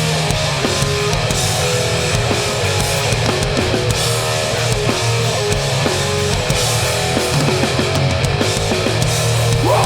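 Hardcore punk band playing live: electric guitar, bass and drums pounding through an instrumental passage without vocals, loud and steady.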